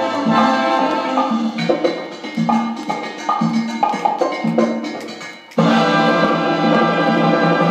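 Recorded music playing from a vinyl record on a turntable, with percussion and a steady rhythm of pitched notes. The level sinks briefly about five seconds in, then comes back suddenly at full strength.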